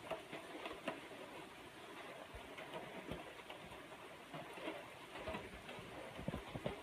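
Steady rain falling, with scattered close taps of drops, a few louder ones about a second in and again near the end.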